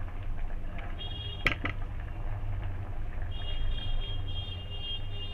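Steady low kitchen hum, with a sharp knock against the cooking pan, followed quickly by a smaller one, about a second and a half in as the fried brinjals go into the simmering gravy. A thin high tone sounds briefly about a second in and again from a little after three seconds.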